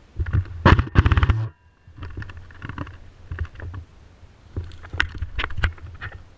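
Airsoft BB guns firing: a couple of loud shots, then a rapid automatic burst about a second in, followed by scattered single shots and clatter.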